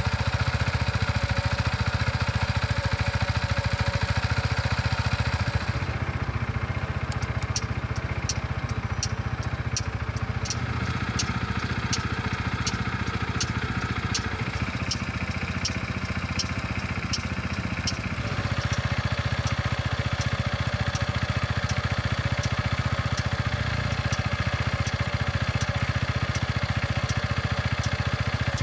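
Quadro Qooder 400 four-wheel scooter's single-cylinder engine idling steadily. From about six seconds in, its turn-indicator flasher ticks evenly alongside it, about three ticks every two seconds.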